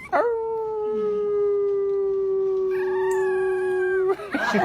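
A pet animal howling one long, steady note that cuts off abruptly near the end.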